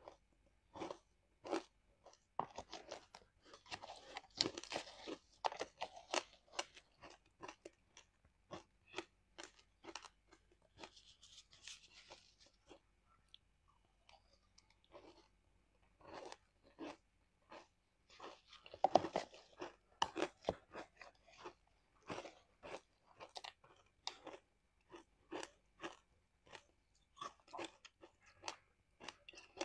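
Ice chunks dusted with matcha powder being bitten and chewed, a quick run of sharp crunches. There is a short lull about halfway through, then a louder spell of crunching.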